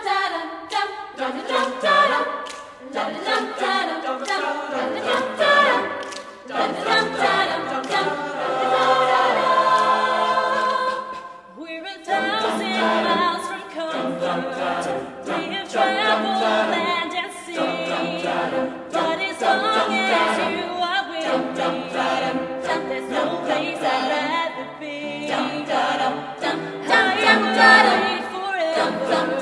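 A choir singing in harmony, unaccompanied, with a short break about eleven and a half seconds in.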